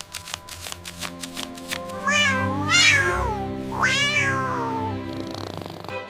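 A cat meowing twice, two long calls that each rise and then fall in pitch, over soft background music. A quick run of light clicks comes before the meows.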